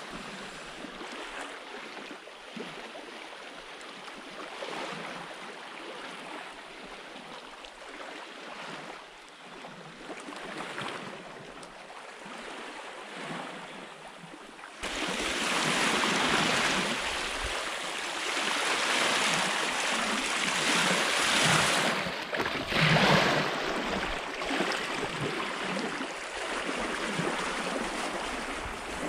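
Sea water washing past a sailing yacht's hull, with wind, as a steady rushing noise. About halfway through it turns suddenly louder, with wind buffeting the microphone.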